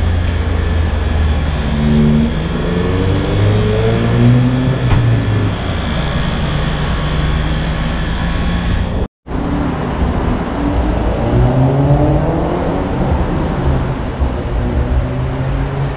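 Road traffic: motor vehicle engines rising in pitch as they accelerate past, several times, over a steady low rumble. The sound cuts out for a split second about nine seconds in.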